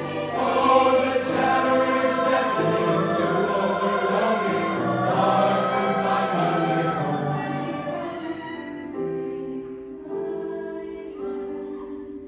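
Mixed choir singing with grand piano accompaniment. About two thirds of the way through the voices die away, leaving a violin and piano playing softer, held notes.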